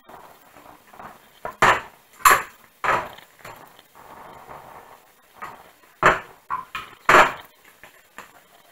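A series of sharp knocks and clinks on a hard surface: five loud ones at irregular spacing over about six seconds, with quieter ticks between them.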